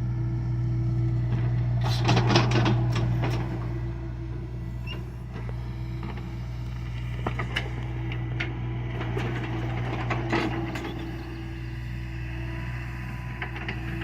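John Deere excavator's diesel engine running steadily, with bursts of clatter and knocking from the machine at work, loudest about two seconds in and again around ten seconds.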